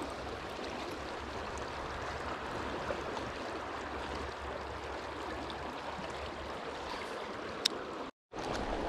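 Steady rushing of a fast river current over rocks. A single sharp click comes near the end, and the sound cuts out for a moment just before the end.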